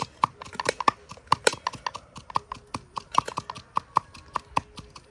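Wooden pestle pounding in a wooden mortar: a quick, uneven run of sharp knocks, about five a second, mixed with a knife clicking against a plate as onions are sliced.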